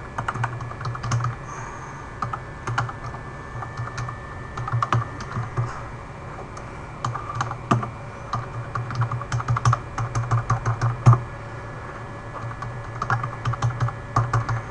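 Typing on a computer keyboard in irregular bursts of key clicks with short pauses between runs.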